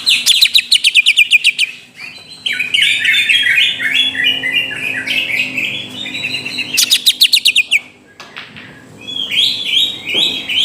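Cucak ijo (greater green leafbird) singing a lure song: fast runs of sharply falling whistled notes, each run about two seconds long, with short pauses between them.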